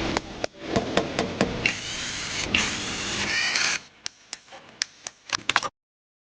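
Tools clicking and knocking against engine parts, with a small power tool running for about two seconds in the middle with a whine that shifts in pitch, then more clicks.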